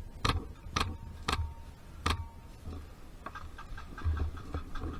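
Airsoft gun firing single shots: four sharp cracks in the first two seconds, then fainter clicks and low thuds.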